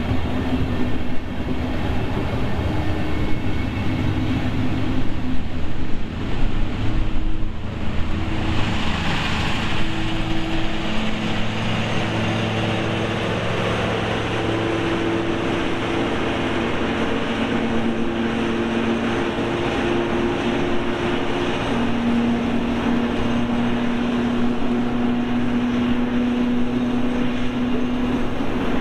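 A long train of unpowered multiple-unit cars rolling past on the rails in a continuous rumble, with steady humming tones that change pitch a few times. Near the end the towing locomotive and its coach pass.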